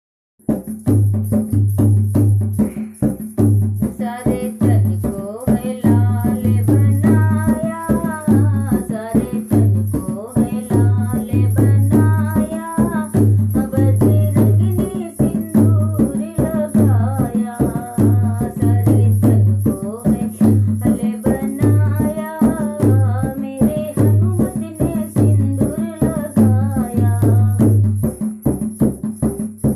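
A woman singing a Hindi devotional bhajan to Hanuman over a steady, rhythmic drum beat and rattling percussion. The drum starts right away and the singing comes in about four seconds in.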